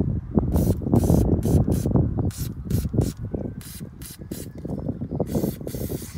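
Aerosol can of WD-40 fast-release penetrating spray hissing through its straw in a dozen or so short bursts onto a corroded brake caliper bleed nipple. A ragged low rumble runs underneath.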